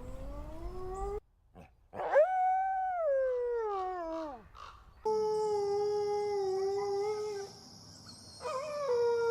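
Red wolves howling in a series of separate clips joined by abrupt cuts: a rising howl cut off about a second in, then a howl that climbs and slides down, then two long, steady, level howls, the first over a high hiss.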